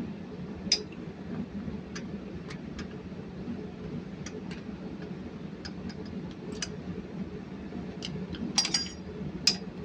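Scattered light metallic clicks and clinks of hand tools on metal engine parts as a pipe clamp is adjusted, with a small cluster of sharper clicks near the end, over a steady low hum.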